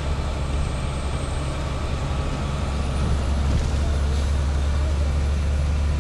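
Tour bus engine and road noise heard from inside the moving bus: a steady low rumble.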